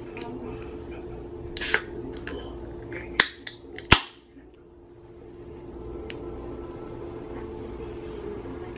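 Ring-pull on a can of Taiwan Beer honey beer being worked open by fingers: a few small clicks and a short scrape, then two sharp snaps about three and four seconds in, the second with a brief hiss as the seal breaks. A steady low hum runs underneath.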